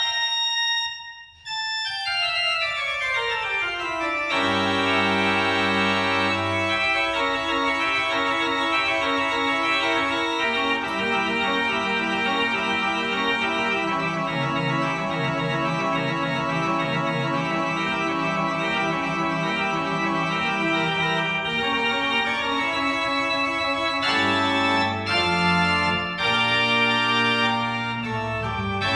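Church organ playing: after a short break about a second in, a fast descending run of notes, then full sustained chords over a deep pedal bass line.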